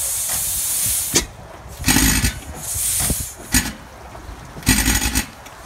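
1913 Galloway 16-horsepower single-cylinder hit-and-miss engine being started, its flywheels hand-spun. After a steady hiss, it fires with four or five loud, sudden exhaust blasts about a second apart, with hissing in between.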